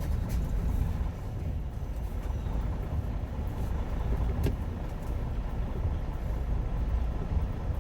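Semi truck's diesel engine running at low speed as the rig pulls slowly into a lot, a steady low rumble heard from inside the cab. There is a single sharp click about halfway through.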